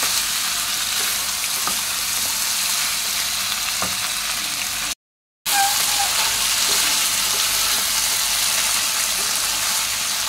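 Goat meat pieces with tomato sizzling steadily in hot oil in a non-stick frying pan while a spatula stirs them, with a few faint spatula clicks; this is the meat being browned before the ground spices go in. The sizzle cuts out for about half a second around the middle.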